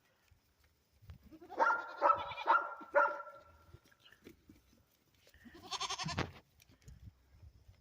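Goat bleating: a run of about four quavering bleats a couple of seconds in, then one more shorter bleat near the end.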